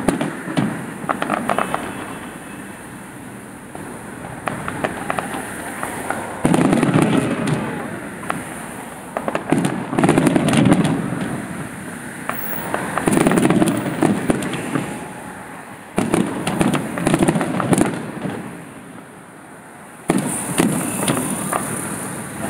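Aerial fireworks display: shells bursting about every three seconds, each burst a loud bang followed by a spray of crackling pops that fades out.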